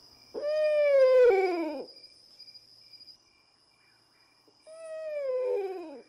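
Two long owl calls, each a clear pitched cry falling in pitch over about a second and a half. The first, about half a second in, is the louder; the second starts near the end.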